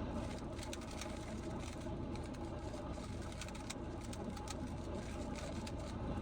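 A Rubik's cube being turned quickly during a blindfolded solve: a stream of irregular plastic clicks and clacks from the layers, over a steady low hum.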